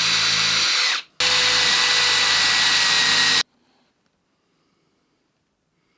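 Power tool running at steady full speed in two bursts, one about a second long and one about two seconds long, each starting and stopping abruptly, used in cutting down the wood of a guitar body.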